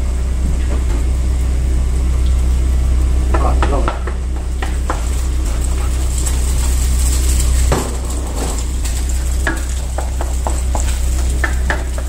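Egg sizzling in garlic butter in a non-stick frying pan while a wooden spoon stirs and scrambles it, with irregular scrapes and taps of the spoon on the pan from about three seconds in. A steady low hum runs underneath.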